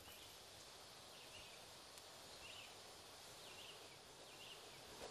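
Near silence: faint outdoor hiss with a few soft, high bird chirps scattered through it.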